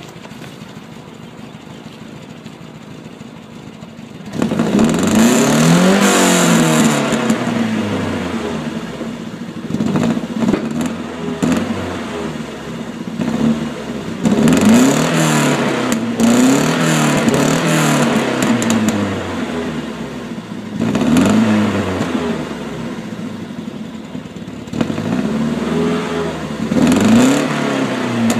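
Volvo 245's engine with an RSI A cam running through an IPD exhaust: a steady idle, then about four seconds in it is revved again and again, the pitch rising and falling with each blip. The IPD system has a slight exhaust leak where its pipe is bent.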